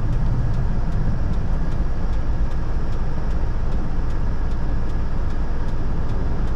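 Mitsubishi Canter truck's diesel engine running steadily while its exhaust smoke is tested.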